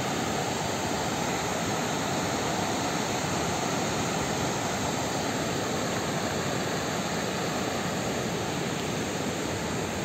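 River water rushing steadily over a low concrete weir and tumbling through rocky rapids.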